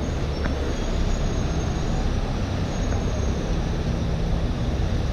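Steady city street traffic: a continuous rumble of vehicle engines and tyres, with a low engine hum underneath.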